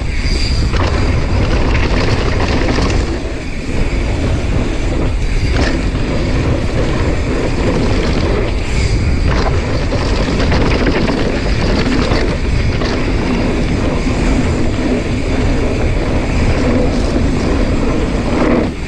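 Heavy wind rumble on an action camera's microphone while riding a mountain bike over a dirt jump line, with tyres and frame rattling on the dirt and a few sharp knocks from landings.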